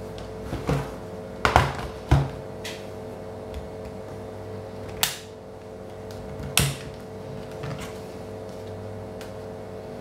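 Handling knocks and clicks from a Dell Latitude D430 laptop's plastic and metal case as it is turned over on a table and its battery is unlatched and pulled out: two loud knocks about one and a half and two seconds in, then sharp clicks about five and six and a half seconds in.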